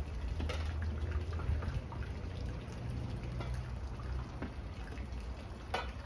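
Water splashing and trickling in a plastic tub as a pole stirs and holds something under, with scattered small splashes and one sharper splash or knock near the end, over a low steady rumble.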